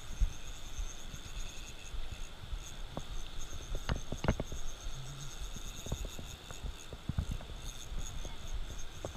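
Steady summer insect chorus with a high, pulsing trill over a low rumble. A few sharp clicks and knocks come as the spinning rod and reel are handled, the loudest about four seconds in.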